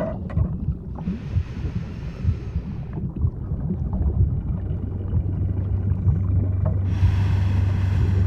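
Underwater ambience: a low rumble of water with many small bubbling pops. A hiss comes in for about two seconds near the start, and a steady low hum joins in later, with more hiss near the end.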